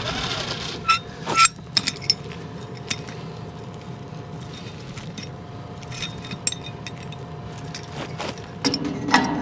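Scattered sharp metal clinks and knocks of farm gear being hitched up, over an engine running steadily at idle with a faint steady whine. The loudest clinks come in a cluster about a second in, with another a little past the middle.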